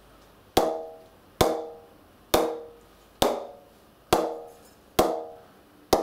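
A cricket ball bounced repeatedly on the face of an Erebus grade 1 English willow cricket bat: seven sharp knocks, about one a second, each with a short ringing note. The bat is pinging nicely down low, the sign of a lively low sweet spot.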